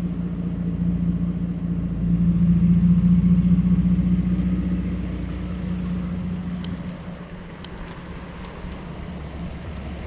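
A car engine running with a steady low drone that swells about two seconds in, then slowly eases off.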